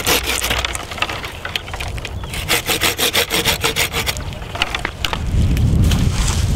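Hand pruning saw cutting through a live apple branch in rapid back-and-forth strokes, the teeth rasping on the wood.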